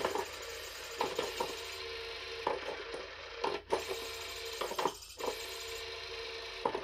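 The motor of a battery-powered JML Pop n Play motorised peekaboo cat toy running with a steady hum inside its hard plastic dome. Irregular clicks and taps on the plastic come and go over it.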